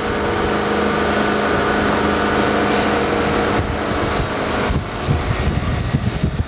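Motorboat engine running steadily, with gusts of wind buffeting the microphone that take over from about three-quarters of the way in.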